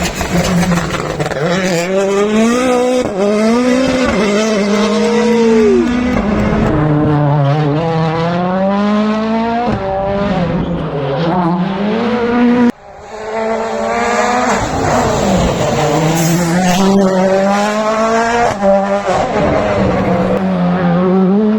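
Rally cars' engines at full attack, their pitch climbing hard and dropping back again and again through gear changes and lifts. The sound breaks off abruptly about halfway through and picks up with another run.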